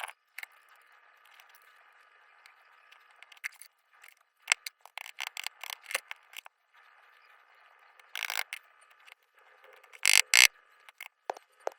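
Small metal lock parts clicking, tapping and scraping as a picked Yale pin-tumbler padlock is taken apart, with louder rattling clusters of clicks about eight and ten seconds in.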